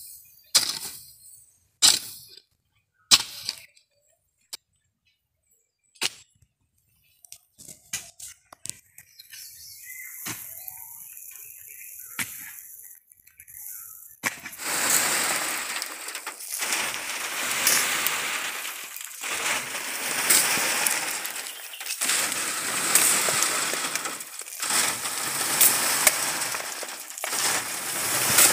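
Hoe blade chopping into a heap of packed soil, sharp separate strikes a little over a second apart. From about halfway, soil is thrown against an upright wire-mesh sieve, a rough rush of earth through the mesh every two to three seconds.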